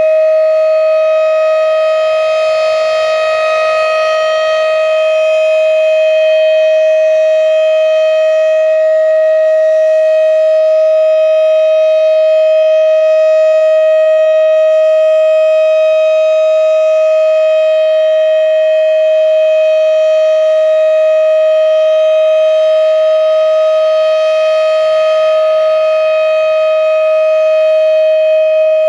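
Federal Signal Thunderbeam RSH-10 rotating outdoor warning siren sounding the steady alert tone, a single loud pitch held level. Its upper overtones swell about three seconds in and again near the end as the rotating horn sweeps past.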